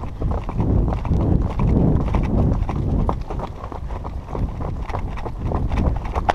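Hoofbeats of a paint horse moving quickly along a dirt forest trail, a quick run of uneven knocks over a steady low rumble from the rider's movement on the microphone.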